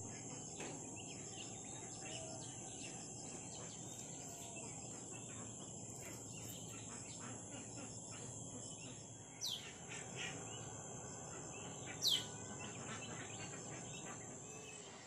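Outdoor birds and insects: a steady high-pitched insect drone under many short bird chirps. Two louder bird calls sweep downward, about nine and a half and twelve seconds in, the second the loudest.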